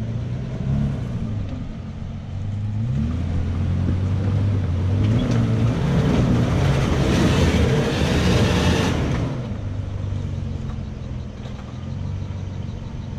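A 4WD's engine revving under load as it climbs a rocky track, rising a few seconds in and loudest towards the middle, with a rushing, scrabbling noise of tyres working over rock, then easing back towards idle.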